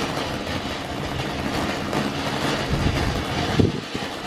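A lit garden firework hissing steadily, with a few cracks late on, the sharpest about three and a half seconds in.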